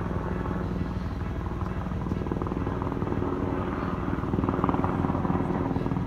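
Helicopter flying overhead: a steady, rapid chop of rotor blades over a low engine hum, growing a little louder about four and a half seconds in.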